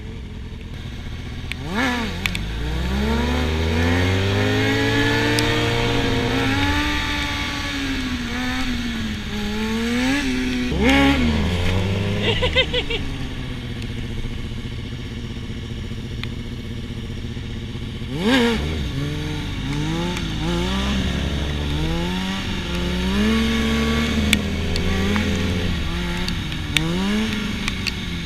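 Sportbike inline-four engine revving hard, its pitch climbing as it accelerates, then falling off as the throttle closes. This happens twice, and in the second half the throttle is worked on and off in quick waves every second or so.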